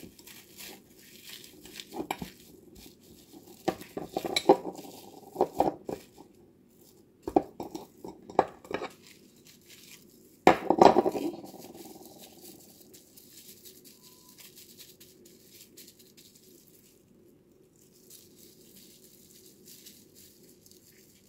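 Plates clinking and knocking on a stone countertop, about half a dozen times with short ringing, the loudest about eleven seconds in, while a burger patty is wrapped in plastic cling wrap and foil by hand; after that only faint rustling of the wrap.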